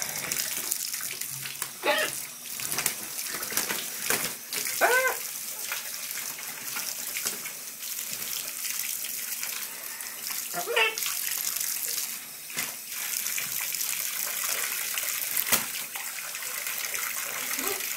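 Tap water running steadily onto a bathing macaw in a tub, with splashes as the bird flaps and shakes its wet wings. A few short calls come through the water noise.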